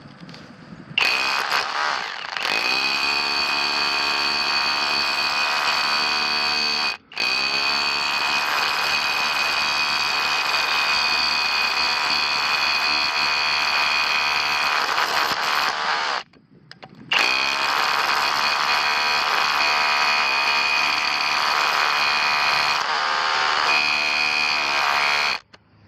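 Kobalt 24V SDS Plus rotary hammer running in chisel (hammer-only) mode with a 3/4-inch flat chisel, in three long runs with short pauses between them. It rises in pitch as it spins up at the start, then hammers steadily with a high whine.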